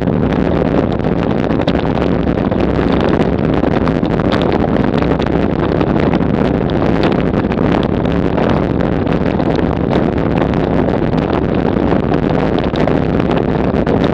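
Road bike rattling hard over rough cobblestones at about 30 km/h: a continuous loud clatter of the frame and wheels jolting on every stone.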